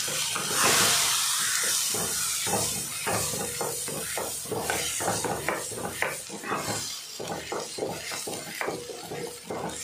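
A wooden spatula scrapes and knocks in a non-stick kadai as a thick gongura paste is stirred and sautéed in sesame oil until the oil separates. A frying sizzle is strongest near the start and then fades.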